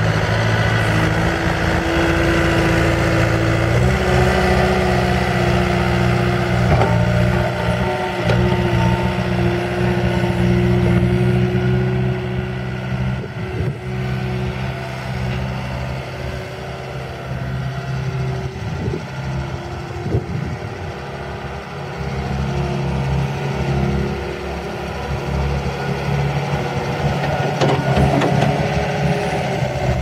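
Bobcat S300 skid steer's Kubota V3300 four-cylinder turbo diesel running as the machine drives about, growing fainter as it moves away midway and louder again as it comes back near the end.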